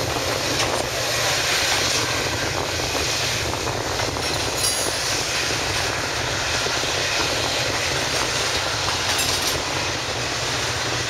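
EMD 16-645E3 turbocharged V16 diesel engines of two SD40-2 and one GP40-2 locomotives working under power, accelerating a train as the lead unit approaches; a loud, steady sound of engines and rolling train.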